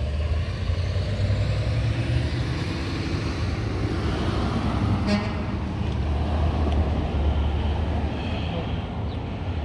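Hot rod V8 engines idling, a steady low rumble.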